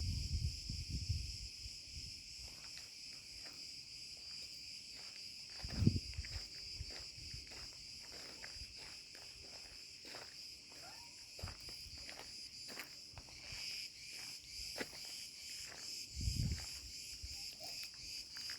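Cretan cicadas (Cicada cretensis) singing in a steady, high buzzing chorus that takes on a pulsing rhythm near the end. Footsteps on dry ground add short crackles and a few low thumps.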